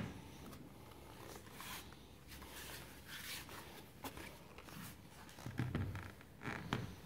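Handling noise of a Dell Latitude E5570 laptop: rustling and light clicks and taps against its casing, then two soft thumps near the end as it is set down on a desk.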